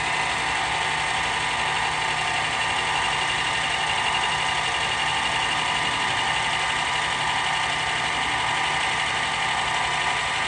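Arboga Maskiner GM3580 drill press running with its spindle turning and the power feed engaged, a steady mechanical whine from the gearing.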